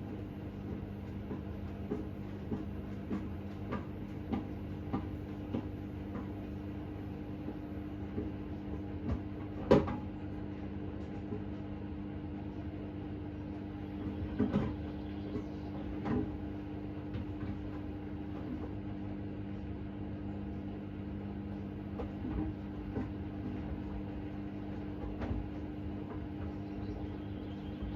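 Hoover H-Wash 600 washing machine running: a steady motor hum with irregular clicks and knocks from the drum, the loudest about ten seconds in and a cluster a few seconds later.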